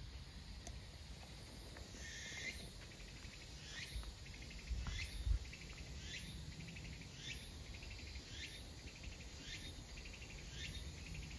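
An insect calling in a repeated high phrase about once a second, beginning around two seconds in; each phrase is a quick sweep with a buzzy trill between. Under it there is a low rumble, and a short thump comes about five seconds in.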